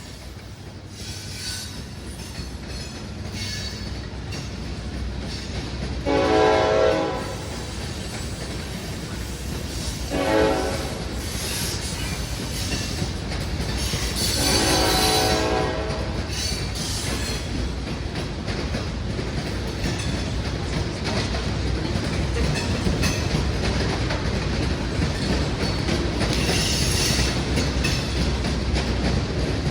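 Freight locomotive horn sounding three blasts: a long one, a short one, then another long one. Between and after them a train's rumble and wheel clatter grow steadily louder as it approaches and passes.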